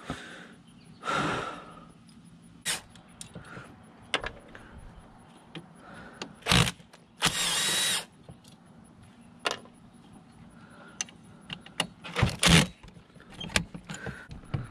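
Cordless driver spinning in several short bursts as it backs screws out of the rear rectifier end of a Denso alternator; the longest burst, a little under a second, comes about halfway through. Light metal clicks and knocks from handling the alternator come between the bursts.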